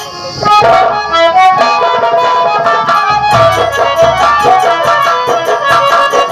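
Live folk-theatre accompaniment: a harmonium plays a melody over brisk hand-drum strokes, swelling to full volume about half a second in.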